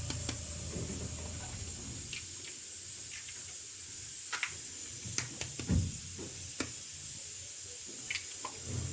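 Scattered light taps and knocks of kitchen work as eggs are handled and cracked into a bowl, with a low hum for the first two seconds.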